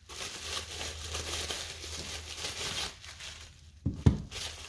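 Plastic packaging crinkling and rustling as it is handled, then a couple of dull knocks about four seconds in.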